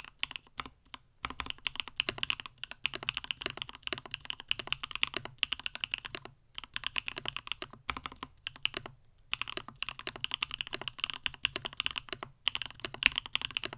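Fast typing on a CannonKeys StackedTKL mechanical keyboard in a stacked acrylic case with Gateron Smoothie linear switches: a quick patter of key strikes in runs of a few seconds, broken by several brief pauses.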